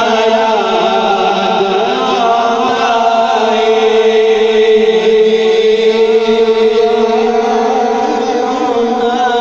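Men singing a naat together into microphones, amplified through loudspeakers, with a harmonium accompanying. The voices hold long, slowly wavering notes, and one note is held strongly through the middle.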